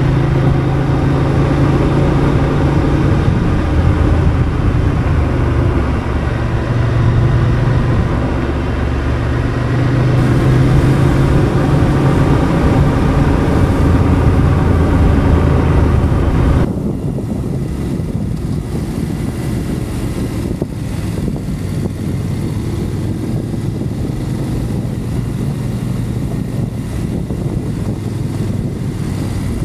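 BMW F 850 GS parallel-twin engine running under way, its note shifting in pitch a few times as the throttle changes. A little over halfway through, it cuts abruptly to a quieter mix: the engine lower, under tyre and stone noise with scattered clicks, from riding a gravel track.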